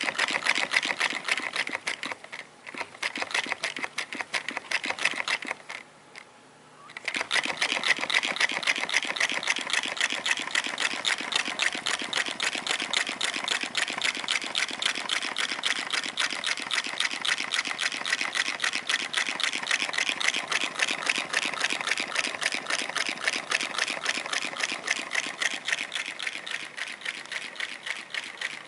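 Homemade walking beam Stirling engine of cardboard and drink cans running, its mechanism clattering in a rapid, even train of clicks. The clatter dips twice in the first seven seconds, briefly and then for about a second and a half, before picking up steadily again.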